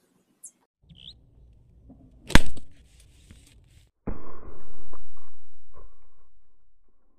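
A sharp crack about two seconds in, then a loud blast about four seconds in that rumbles and dies away over some three seconds: a firecracker set on a bamboo post going off.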